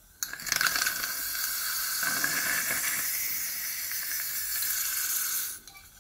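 A wooden toothpick wrapped in PTFE sheet burning fiercely in liquid oxygen: a steady loud hiss and sizzle that starts suddenly just after the start and cuts off about five and a half seconds in as the flame goes out. The burning decomposes some of the PTFE without setting it alight.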